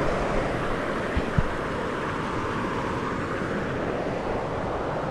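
Steady rushing of a creek waterfall: an even, unbroken wash of water noise.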